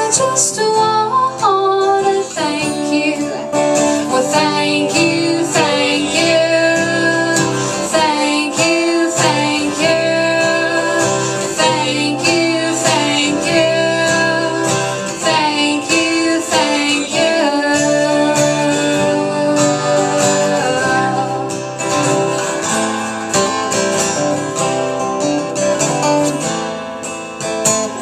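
Live acoustic country music: acoustic guitar with singing over it.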